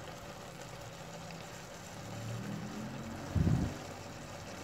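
Thick soup simmering in a steel pot on a gas stove: a low steady rumble, with one short low thump about three and a half seconds in.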